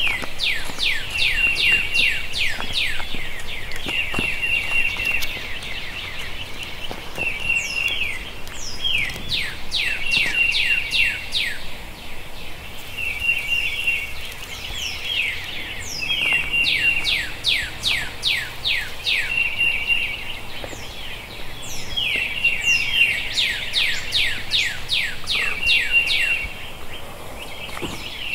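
Birds calling in a continuous chorus: runs of quick falling whistled notes and short rapid trills, coming again every few seconds.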